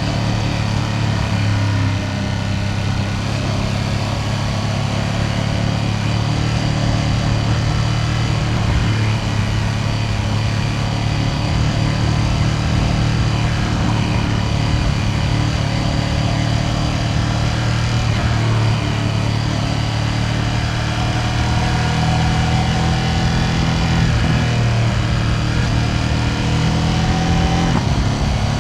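Ducati Panigale V2S's V-twin engine running at fairly steady revs under way, with wind and road noise. Its pitch changes only slightly, easing up and down a little in the latter half.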